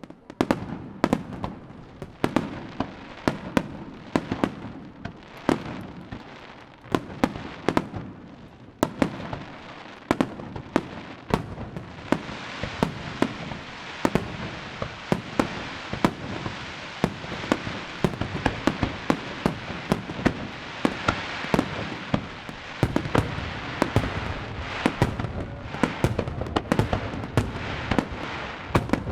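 Aerial fireworks display: shells bursting in a fast, overlapping run of sharp bangs, several a second. Between the bangs there is a steady crackling hiss that thickens about halfway through.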